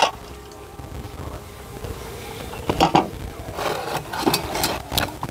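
Scattered light knocks and clinks of objects being handled, a few around the middle and several more in the last two seconds.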